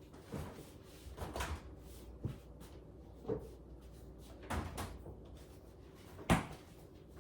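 A refrigerator door being opened and shut, with a series of knocks and clunks as things are moved about inside. The sharpest knock comes about six seconds in.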